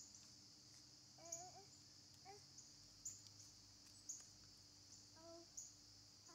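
Near-silent outdoor ambience: a steady high drone of insects, a few short faint chirps, and a young child's brief faint vocal sounds about a second in, two seconds in and near the end.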